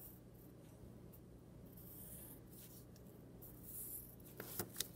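Graphite pencil scratching on paper in a few faint, short strokes as lines are sketched, with a few light clicks near the end.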